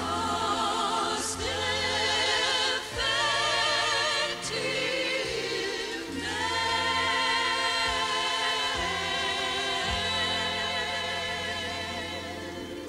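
A chorus of voices sings a show tune in long held notes with heavy vibrato over a steady low accompaniment. About six seconds in they swell into one long sustained chord that fades near the end.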